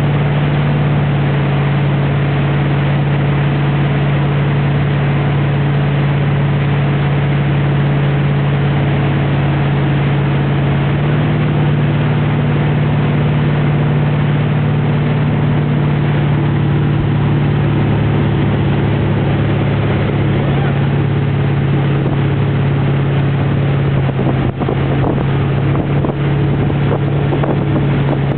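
Towing motorboat's engine running steadily at speed: a low drone that steps up a little in pitch about eleven seconds in, over a loud hiss of wind and rushing water.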